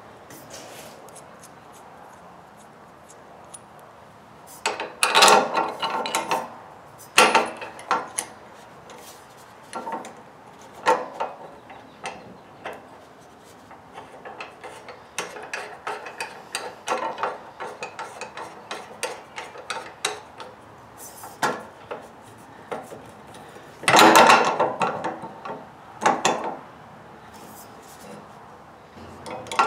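Steel bolts and nuts being fitted by hand into a generator's tubular steel handle clamp: scattered metallic clinks, taps and rubbing, with a few louder clattering spells about five, seven and twenty-four seconds in.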